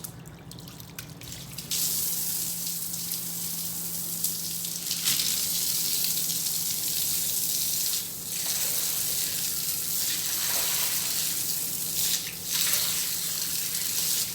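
Water spraying hard from a garden hose while washing down dust, a steady hiss that starts about two seconds in and breaks off briefly twice. A low steady hum runs underneath.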